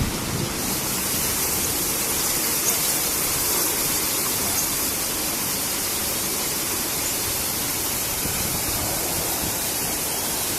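Automatic car wash machine spraying water, a steady loud rushing hiss. The hiss grows stronger about half a second in and then holds steady.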